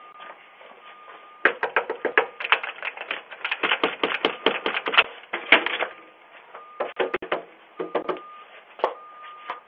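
Rapid, irregular clicking and clattering, dense for a few seconds, then in short sparse clusters, heard through a doorbell camera's thin-sounding microphone.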